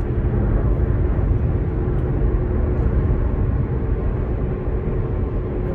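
Steady low road noise inside a car's cabin at freeway speed, with a faint steady hum running under it.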